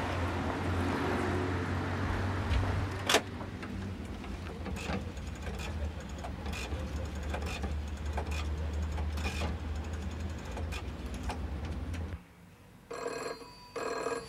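Steady low rumble of street traffic with scattered clicks and a sharp knock about three seconds in. Near the end, a rotary-dial desk telephone's bell rings in two short bursts close together: the British double ring of an incoming call.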